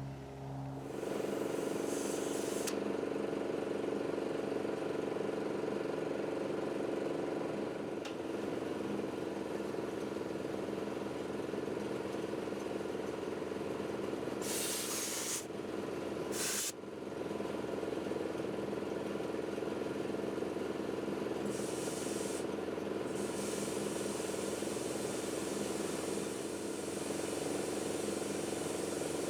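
A motor, most likely an air compressor, runs steadily while compressed air is fed into a split-rim forklift tire to try to seat its bead and lock ring. Short bursts of air hissing come about 15 and 17 seconds in, and a fainter one a little after 21 seconds.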